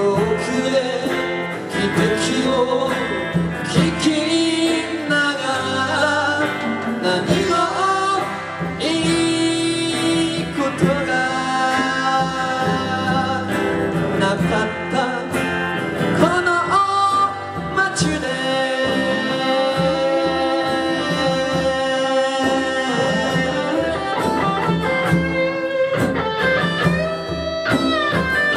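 Live band playing a folk song, guitar to the fore, with a sustained melody line over the chords.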